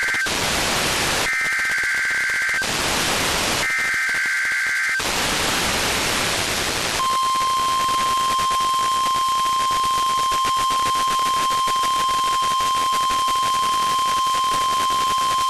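NOAA Weather Radio Required Weekly Test tones over radio static: the end of one SAME header burst, then two more short bursts of warbling two-tone digital data about a second apart, with hiss between them. About seven seconds in, the steady 1050 Hz weather-radio alert tone comes on and holds.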